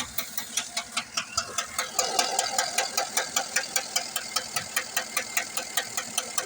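2008 Chevrolet Tahoe's 5.3-litre V8 running with a sharp, rhythmic ticking knock, about five ticks a second: the abnormal engine noise being checked.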